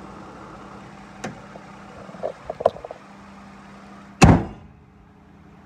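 Hood of a Toyota Sienna V6 van being lowered and slammed shut with one loud bang about four seconds in, after a few light knocks, while the engine idles. Once the hood is shut, the engine sound goes duller.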